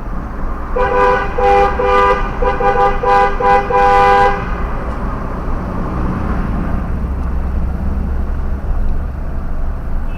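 Car horn honked about five times in quick succession with a two-note tone, then steady road rumble heard from inside the moving car.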